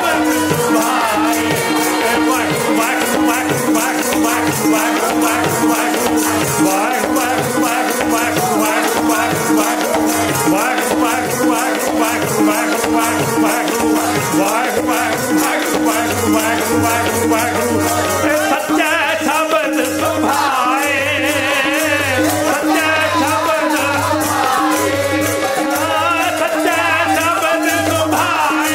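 Sikh kirtan music: a harmonium holds a steady drone under sung melody, with a drum keeping a rhythm in the low end and a continuous jingling, rattling percussion on top.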